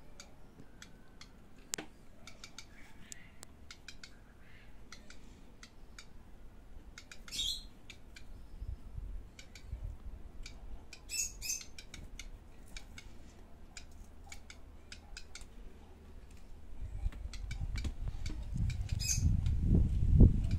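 Black redstart nestlings begging in the nest: a few short bursts of high, thin cheeping, with faint clicks in between. A low rumble builds near the end.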